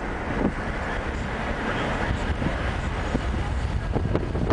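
Steady low rumble and road noise of a car driving, heard from inside the car.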